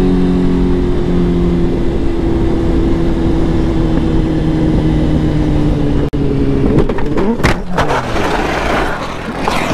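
Sport motorcycle's engine note easing slowly down in pitch under heavy wind rush as the bike rolls through a turn. About seven seconds in the bike goes down: the engine note drops away in falling sweeps amid clattering and scraping from the crash.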